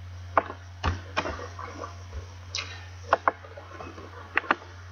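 Scattered sharp clicks of a computer keyboard and mouse, about eight in a few seconds, over a steady low electrical hum.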